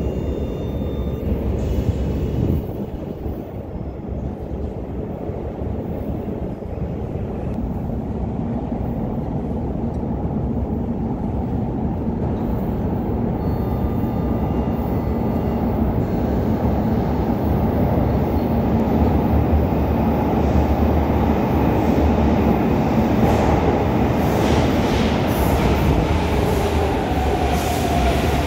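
São Paulo metro train approaching through the tunnel and arriving in an underground station: a low rail rumble that grows steadily louder, with wheel-on-rail rattle and a whine that falls in pitch near the end.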